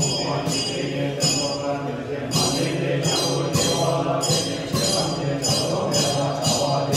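Buddhist ritual chanting in a low, steady drone, accompanied by ringing metal percussion struck about once or twice a second.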